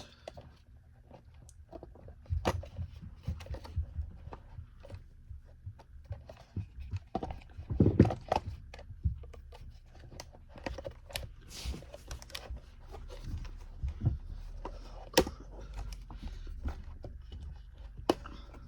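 Plastic parts of a Bissell CleanView upright vacuum being handled and fitted together by hand: irregular clicks, taps and knocks, with a louder knock about eight seconds in, over a low steady hum.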